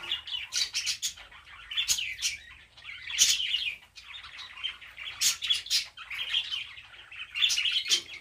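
Small birds chirping, with clusters of quick high chirps coming every second or so.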